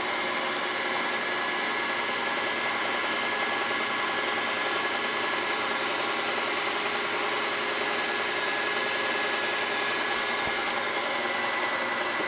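Milling machine spindle running steadily, a 1/4-inch twist drill boring holes through an aluminium way-wiper blank, a steady motor hum with a clear high tone. A few brief high clicks sound near the end.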